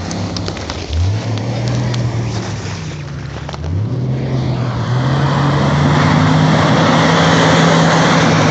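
Off-road Jeep Wrangler TJ's engine revving in short surges, then held at higher revs from about five seconds in under a loud rushing noise, as it works to climb an obstacle. A few sharp clicks sound during the first four seconds.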